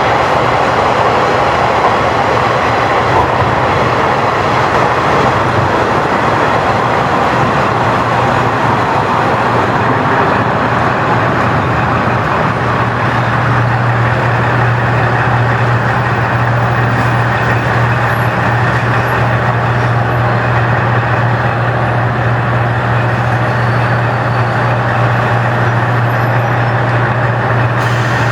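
Steady drone of a large diesel engine heard from on board, a low hum over constant rushing running noise; the hum grows stronger about twelve seconds in.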